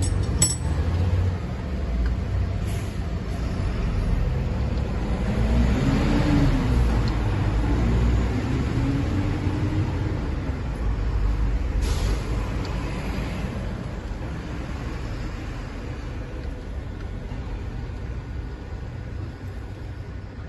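A motor vehicle's engine rumbling low and steady, its pitch rising and falling once about six seconds in, with a few sharp metallic clicks.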